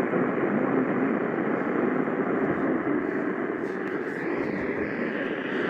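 Steady rushing static hiss from a weather radio receiver, with no voice on the channel.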